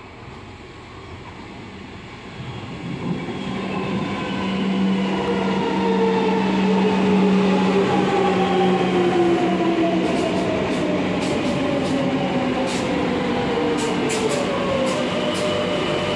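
Metro de Madrid 7000-series train pulling into the platform. Its running noise swells over the first few seconds, and a whine falls steadily in pitch as the train slows. A run of sharp clicks comes in the last few seconds.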